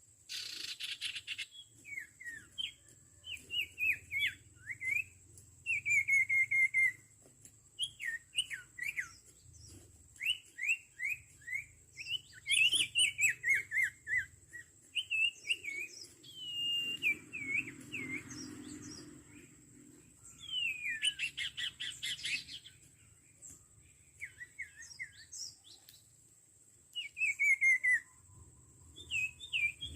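Sirtu birds calling: quick series of short, down-slurred whistled notes, repeated again and again with brief pauses between series.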